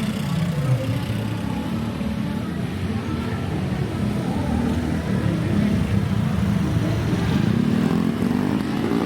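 Street traffic: motorbike and car engines running and passing close by, a little louder in the second half.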